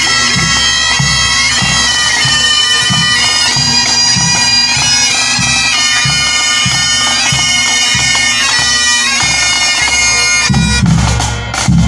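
Pipe band marching past: bagpipes play a tune over their steady drone, with bass and snare drums beating a regular march rhythm. Near the end the pipes stop and the drums carry on alone.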